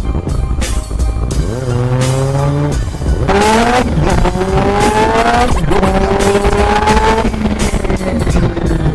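Honda CB-1 400 inline-four motorcycle with an Akrapovic exhaust accelerating hard through the gears: the engine note climbs steadily, drops sharply at each upshift, about three seconds in and again near six seconds, and climbs again.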